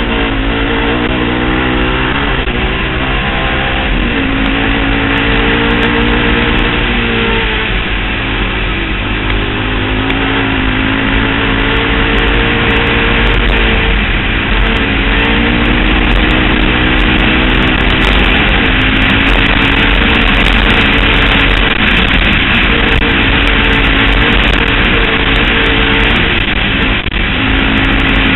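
2008 Honda TRX700XX quad's single-cylinder engine through a Big Gun Evo-R aftermarket exhaust, ridden hard at speed, its revs rising and falling with the throttle.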